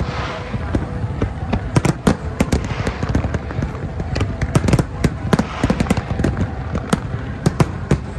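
Aerial fireworks shells bursting in a dense, irregular string of sharp bangs, several a second, throughout.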